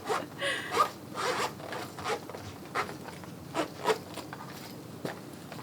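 A knee-high boot's full-length inner side zipper being pulled in a series of short rasping strokes.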